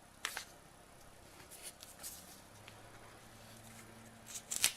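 Faint handling sounds of smartphones and their packaging: a few light clicks and rustles, with a quick cluster of taps near the end.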